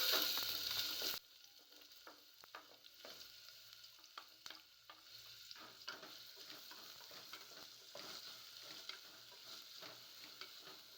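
Chopped onions frying in hot oil in a pressure cooker, sizzling while being stirred with a spatula. The sizzle is loud at first and drops off suddenly about a second in. After that it goes on more quietly, with scattered scrapes and taps of the spatula against the pot.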